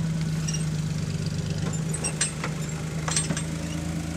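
Jeep CJ5's engine running steadily at low speed as it crawls over rocks, with a few short sharp knocks about two and three seconds in.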